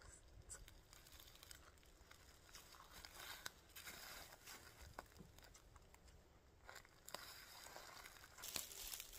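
Near silence, with faint rustling and a few scattered small clicks.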